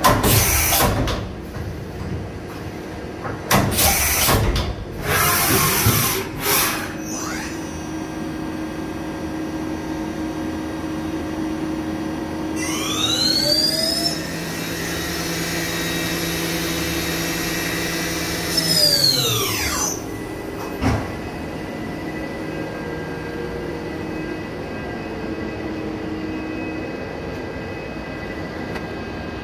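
DMG Mori DuraVertical 5100 vertical machining center's spindle motor runs up with a rising whine, holds speed for about four seconds, then winds down with a falling whine, over a steady machine hum. Loud irregular knocks and rustling come in the first several seconds, and a single click follows after the spindle stops.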